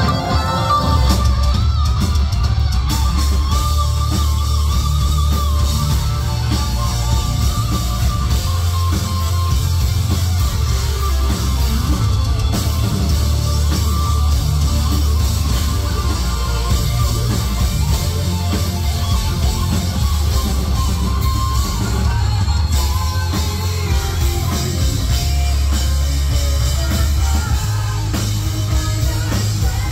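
Live heavy metal band playing loud: electric guitar lead over a drum kit and bass, with a heavy, booming low end.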